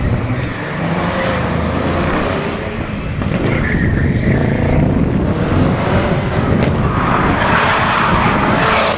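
A V8 BMW E30 Compact and a Mitsubishi Lancer Evo VIII racing around a tight kart circuit, their engines revving up and down through the corners. Near the end, tyres scrub and squeal as the Evo slides through a bend.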